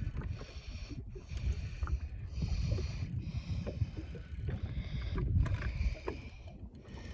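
Fishing reel whirring in repeated runs about a second long with short gaps, as a fish is played on the line. Wind rumbles on the microphone throughout.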